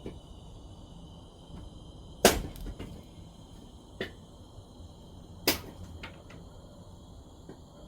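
Sharp wooden knocks: three strong ones, the loudest about two seconds in and the others near four and five and a half seconds in, with a few faint taps between, as firewood is handled and split.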